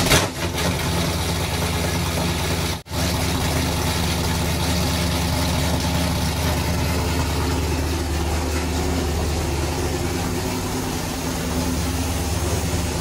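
1977 Chevrolet Camaro engine idling steadily just after a cold start, the car having sat unstarted for a couple of months. The sound cuts out briefly about three seconds in.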